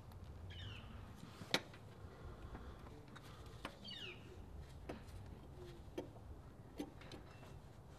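Light, scattered clicks and taps of a compression tester's hose fitting being screwed by hand into a spark plug hole, with one sharper click about a second and a half in. Two brief high falling chirps are heard as well.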